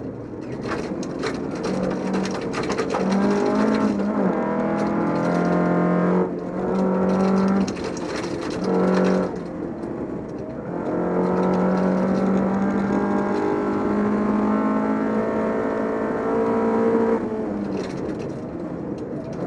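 Volvo 242 rally car's engine running hard at high revs, heard inside the car, with brief drops at gear changes or lifts about six, eight and ten seconds in. Sharp clicks in the first few seconds and near the end are gravel striking the car's underside.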